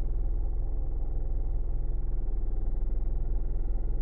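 Car engine idling, a steady low hum heard from inside the car's cabin.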